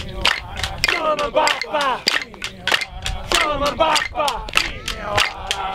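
Aboriginal ceremonial chanting: several men's voices singing together in falling, sliding lines over a fast, steady beat of sharp clicks.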